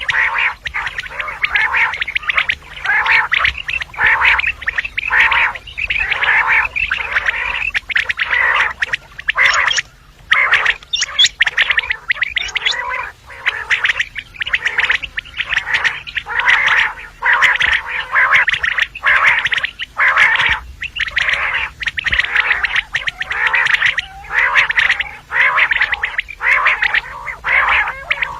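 Common quail calling: a dense, unbroken run of short, raspy, gurgling calls, several a second.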